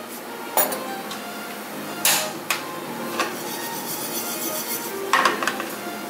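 A metal teaspoon clinking against a small ceramic ramekin and a frying pan as salt is spooned into a dry nonstick pan: a handful of separate clinks and scrapes, with a brief rush of salt pouring into the pan about two seconds in.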